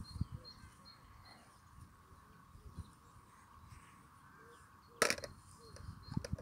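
Quiet outdoor background with faint bird calls, and one sharp knock about five seconds in.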